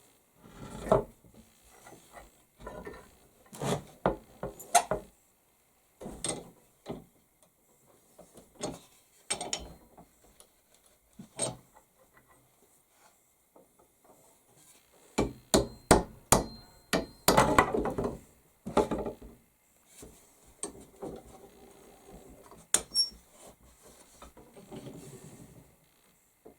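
Irregular hammer knocks on wood, with a quick run of heavier blows about two-thirds of the way through, one of them ringing briefly like metal. This fits driving wedges into the eye of an axe handle.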